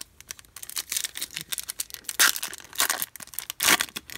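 Foil wrapper of a Topps Chrome baseball card pack being torn open and crinkled by hand: a dense crackle, with louder rips about two seconds in and near the end.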